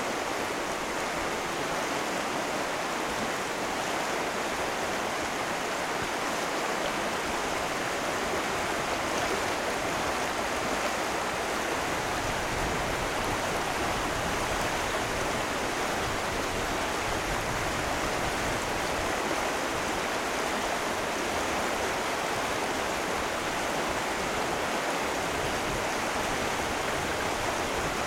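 Shallow rocky river rushing steadily over riffles, with a deeper rumble joining about twelve seconds in.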